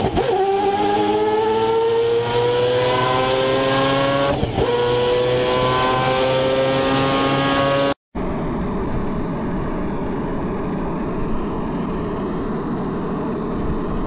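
Car engine heard from inside the cabin, its note rising slowly and evenly as the car speeds up along the road. After a sudden brief cut about halfway, a steadier, noisier drone of the car driving on beach sand.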